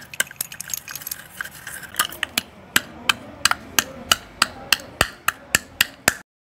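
White chalk sticks clicking and clinking against each other as they are handled. From about two seconds in, chalk is pounded in a steel bowl, with sharp, even strikes nearly four a second that cut off abruptly near the end.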